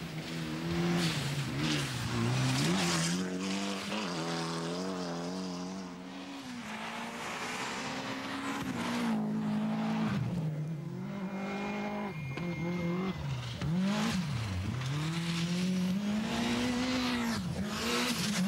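Rally cars' engines revving hard and going up and down through gear changes, several cars in turn, with the hiss and spray of tyres on the loose stage surface.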